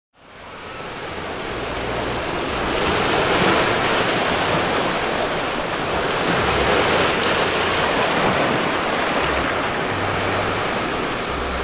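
Small ocean waves washing in and breaking over a low, rocky shoreline: a steady rush of surf that fades in over the first couple of seconds.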